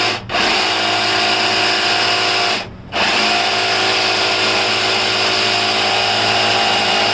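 Handheld power tool running at full speed while cutting through wood, a steady motor whine that drops out briefly twice in the first three seconds as the trigger is let off and pulled again.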